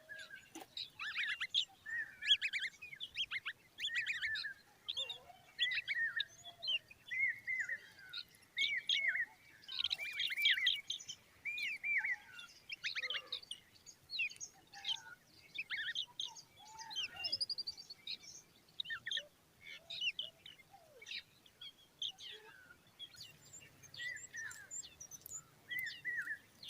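Common babblers calling: a busy stream of short chirps and arched, rising-and-falling notes, several birds overlapping, with brief pauses between bouts.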